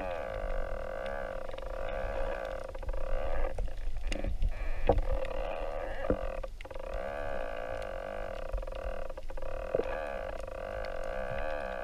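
Underwater hum: a steady drone made of several held tones that waver slowly up and down in pitch, over a low rumble, with a few short knocks around the middle.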